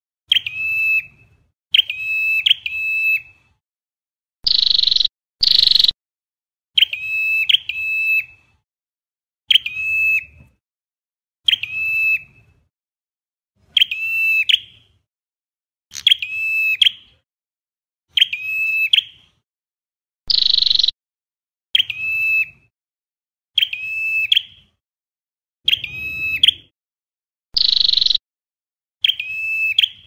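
Ashy tailorbird singing: short, clear, ringing notes repeated about every two seconds, sometimes doubled or tripled in quick succession. Now and then a louder, harsher buzzy call breaks in.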